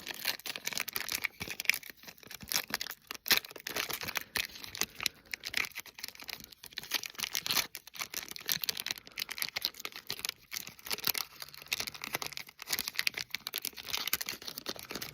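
Foil trading-card pack wrapper being worked open by hand, crinkling and tearing in a long irregular run of sharp crackles.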